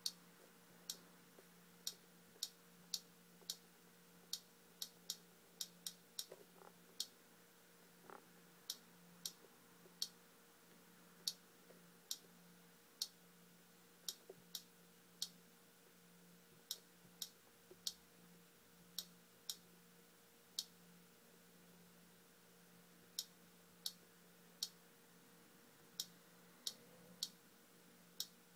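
Light, sharp clicks at irregular spacing, about one or two a second, from a finger tapping icons on an iPhone touchscreen, over a faint steady low hum.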